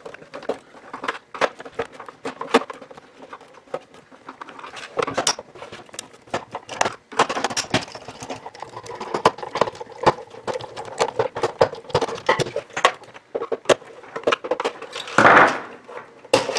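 Phillips screwdriver working screws out of a hard plastic pump housing, with hands handling and shifting the shell: a fast, dense run of small clicks, scrapes and knocks, the footage played sped up. A louder burst of noise about half a second long comes near the end.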